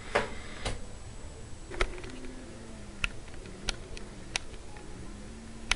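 Scattered light clicks and taps, about seven in six seconds, as a person stands on a Taylor digital bathroom scale and handles the camera, with a faint low hum in the middle.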